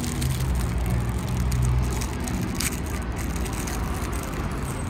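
Street traffic, with a steady low engine rumble from a vehicle, and the crackle of a plastic bag around a bun being handled.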